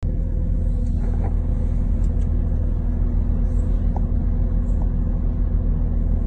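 Steady low rumble and hum of a halted diesel passenger train, heard from inside the carriage with its engine idling.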